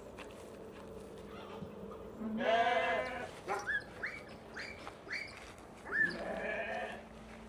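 Lambs bleating: one long, wavering bleat about two seconds in, then a run of short rising calls and another bleat near the end.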